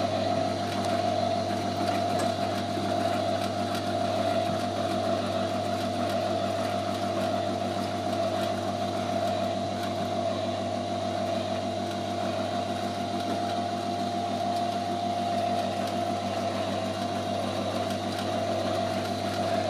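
Electric drive and gear mechanism of an animated model bakery with moving wooden baker figures, running with a steady hum and a fast, even clatter.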